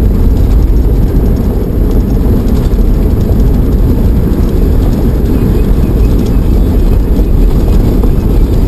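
Steady, loud low rumble of a vehicle driving on a gravel track, engine and tyres on the gravel heard from inside the cabin.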